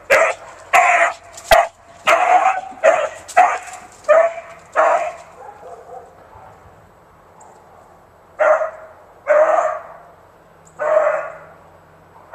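Beagle baying on a scent: a rapid run of loud, short barks about two a second, a few seconds' pause, then three more spaced barks.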